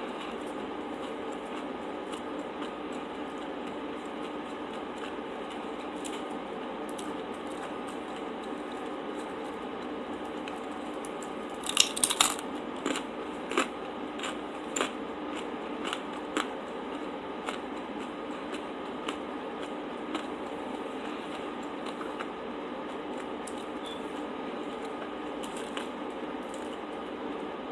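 Close-miked eating sounds: a quick burst of crisp crunches and clicks about twelve seconds in, then scattered single clicks and chewing noises over a steady background hiss.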